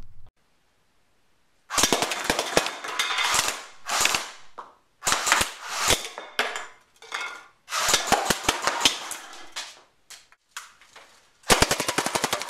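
CYMA CM028 AK-style electric airsoft rifle firing on full auto: several short bursts of rapid sharp shots with pauses between them, then a long unbroken burst near the end.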